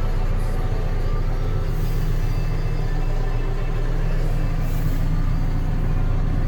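Hidromek HMK 102B Supra backhoe loader's diesel engine running at a steady speed, with two brief high hisses about two seconds and five seconds in.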